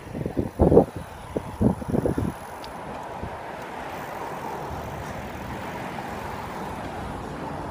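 Wind buffeting the phone's microphone in uneven gusts for about the first two seconds. Then a steady rushing of road traffic swells and fades, like a vehicle passing on the road.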